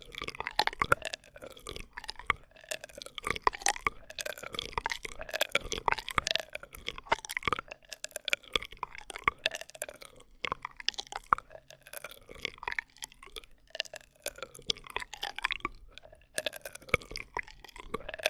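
ASMR straw sounds close to the microphone: a constant run of wet clicks, with whistly tones through a drinking straw that glide up and down in pitch.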